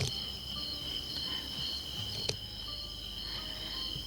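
Steady chorus of night insects, crickets trilling at a high pitch without pause, with a sharp click at the start and another a little after two seconds in.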